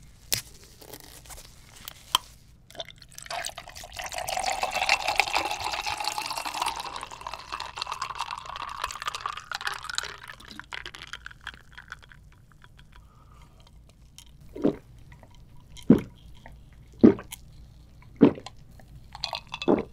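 Milky rice drink poured from a plastic bottle into a tall glass, a steady stream whose pitch rises as the glass fills. Then four or five short, sharp sounds about a second apart.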